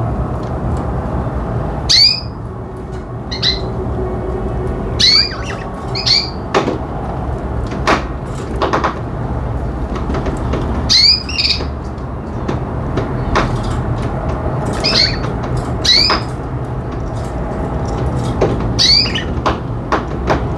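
Pet budgerigars calling: short, sharp swooping chirps every one to three seconds, some in quick pairs, over a steady low hum.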